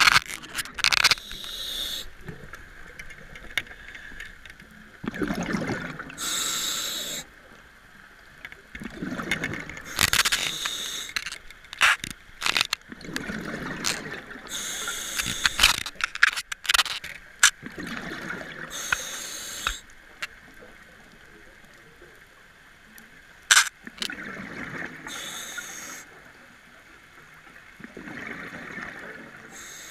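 Scuba diver breathing through a regulator underwater: a hiss on each inhale and a gurgling rush of exhaled bubbles, repeating every few seconds, with a few sharp clicks between breaths.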